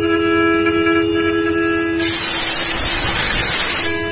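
CNC engraving machine milling metal parts, its spindle and cutter giving a steady whine at one constant pitch. About two seconds in, a loud hiss covers it for about two seconds before the whine returns.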